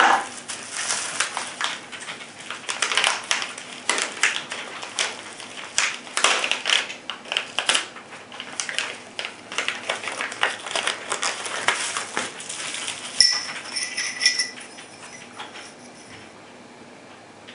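Plastic bubble-wrap packaging crinkling and crackling as it is handled and opened, with irregular rustles for about thirteen seconds. Then a single sharp clink of the thin anodized aluminum grip panels, ringing briefly in a few clear tones.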